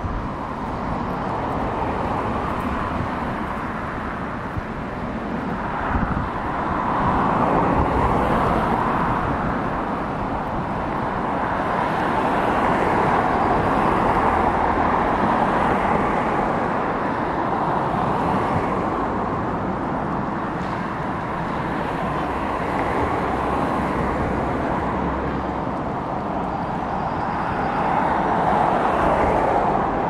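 Steady road traffic noise, vehicles passing one after another so that the rushing sound swells and eases every several seconds.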